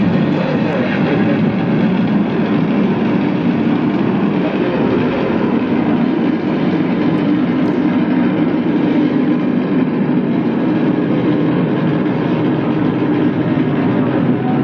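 Steady loud rumbling roar of a recorded space shuttle launch sound effect, played through the loudspeakers of a model launch-pad display as its engine lights glow.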